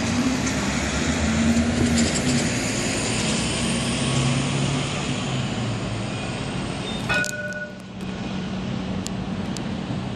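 Edinburgh tram, a CAF Urbos 3, approaching along street track with a low electric hum and rolling noise, over steady city traffic. A short high beep-like tone sounds about seven seconds in.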